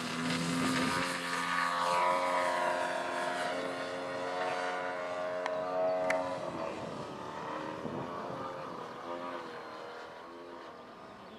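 Radio-controlled model airplane's motor and propeller running at flying power as it takes off and flies past. The pitch shifts as the plane passes, dropping about six and a half seconds in, and the sound fades toward the end.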